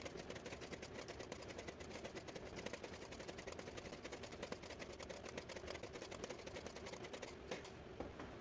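Cordless brad nailer firing nails into pine strips over and over, a dense run of sharp clicks, many a second.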